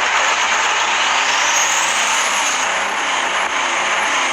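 Truck engine running hard after a burnout, with a loud, steady hissing racket; the piston rings are fried and the engine is blowing oil. A faint high warbling tone repeats from about a second and a half in.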